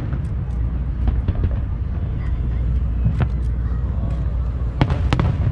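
Aerial firework shells bursting: a sharp bang about three seconds in and two more in quick succession near the end, over a steady low rumble.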